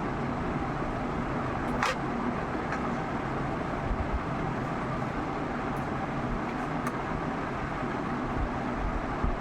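Steady background noise like distant road traffic, with a few light clicks, one about two seconds in and another near seven seconds.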